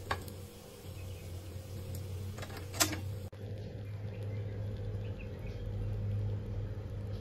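Steady low machine hum, with a sharp click right at the start and a louder click a little under three seconds in.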